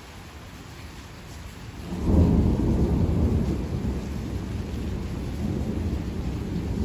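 Thunder: a low rumble breaks in suddenly about two seconds in, peaks at once and keeps rolling, over a steady hiss of rain.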